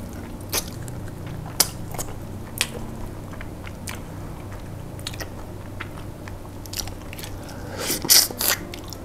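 Close-miked eating of pressure-cooked chicken feet: chewing and sucking with sharp, irregular wet clicks and soft crunches. A louder cluster of clicks comes near the end.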